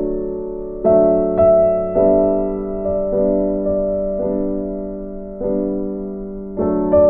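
Background music: slow, soft piano chords, each struck and left to ring and fade before the next.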